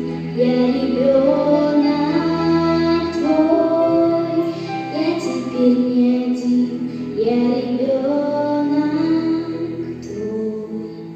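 Music: a female voice singing a slow melody over soft accompaniment, growing quieter near the end.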